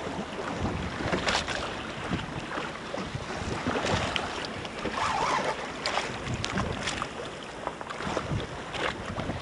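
Wind buffeting the microphone over choppy sea, with water slapping and splashing against a small boat's hull in irregular knocks.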